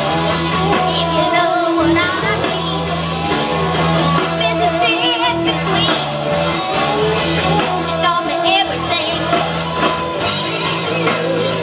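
Rock band playing live through a PA: singing over electric guitars, bass and drums, with a steady low bass line under it.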